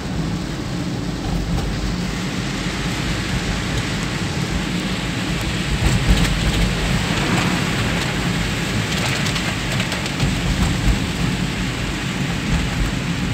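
Heavy rain on a car's roof and windscreen, heard from inside the cabin as a steady hiss over the low, steady rumble of the car driving.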